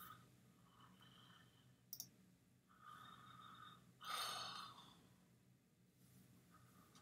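Near silence over a faint steady hum: a computer mouse clicks about two seconds in, and a soft breathy sigh follows a couple of seconds later.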